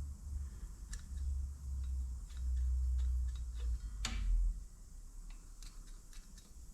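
Irregular light clicks and taps, with one sharper click about four seconds in, over a low steady rumble.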